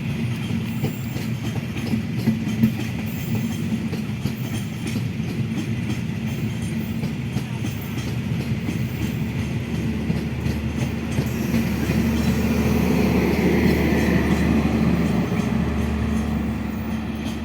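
Train running past on the rails: a steady rumble of wheels with clicks over rail joints, growing louder about twelve seconds in.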